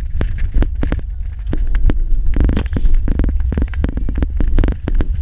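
Vehicle driving over a rough dirt track, heard from inside the cabin: a steady low rumble with frequent sharp knocks and rattles as it jolts over the bumps.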